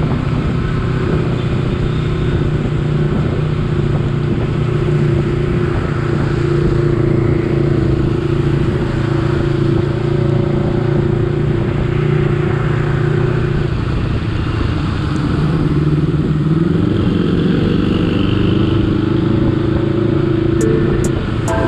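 Honda CBR250RR motorcycle engine running steadily under way, with its pitch shifting a little toward the end of the stretch.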